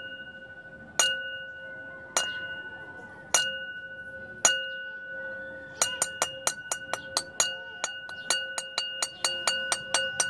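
A small ringing object, glass- or bell-like, is struck about once a second for the first five seconds. From about six seconds in it is tapped rapidly, roughly four or five times a second. Each strike rings on the same clear tone. This is the sound cue used to condition a pet mouse to go to its box.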